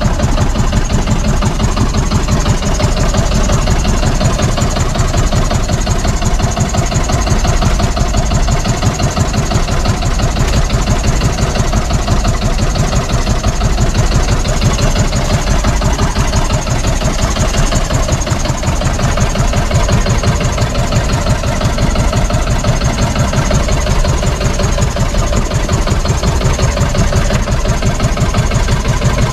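Outrigger boat's engine running steadily while under way, an even, unbroken drone.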